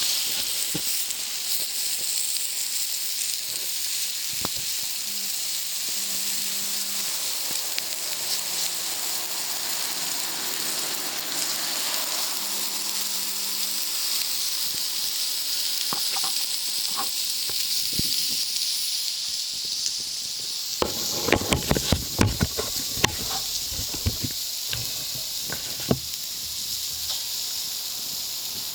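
Food sizzling on a wood-fired plancha, a steady hiss, with a cluster of sharp clicks and knocks about three quarters of the way through.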